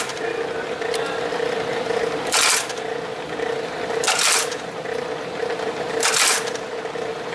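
Graphotype embossing machine running with a steady motor hum. It punches characters into a metal address plate: three loud clacking strokes about two seconds apart.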